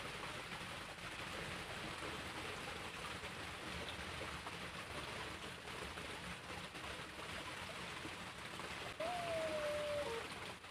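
Steady rushing of flowing creek water. About nine seconds in, a short pitched call lasting about a second is heard over it.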